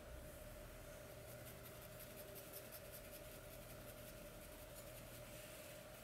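Faint, quick scratchy strokes of synthetic wig hair being worked on, likely brushed or cut, over a steady low electrical hum.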